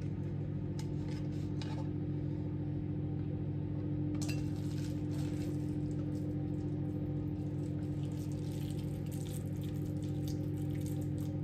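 Steady electrical hum of a kitchen appliance. Over it come light clinks of dishes and the rustle of cabbage leaves being handled, most noticeable about four seconds in and again near the end.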